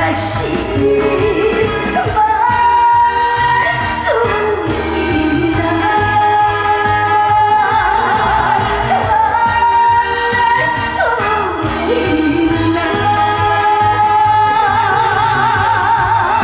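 A woman singing a Korean trot song live over band accompaniment, holding long notes with a wavering vibrato.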